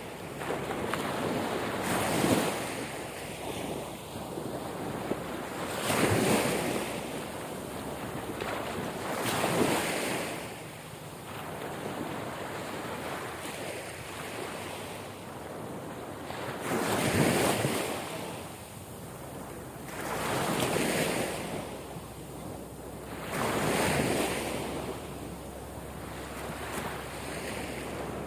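Ocean waves breaking on the shore, the surf swelling and fading every few seconds, with wind buffeting the microphone.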